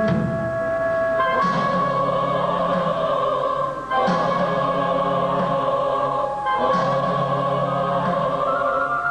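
Choral music: a choir singing long held chords over a MIDI-sequenced accompaniment, the chord changing about every two and a half seconds.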